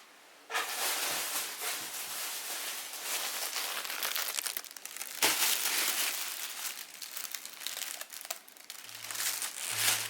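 Continuous crinkling and rustling, loudest about five seconds in. Music begins faintly near the end.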